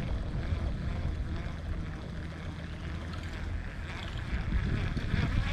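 Wind rumbling steadily on the microphone.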